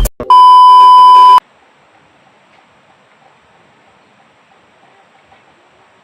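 A loud electronic beep, one steady high tone lasting about a second, like a censor bleep. It cuts off suddenly and leaves only a faint hiss with small crackles.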